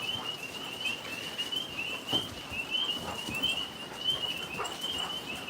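Tree frogs calling in a steady chorus: a continuous high trill that wavers up and down, with a few faint rustles.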